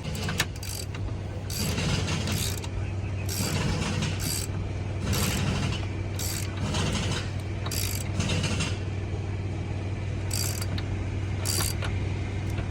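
A hand ratchet clicking in short bursts of strokes, with pauses between, as fasteners are driven in while a truck steering wheel is put back together. A steady low hum runs underneath.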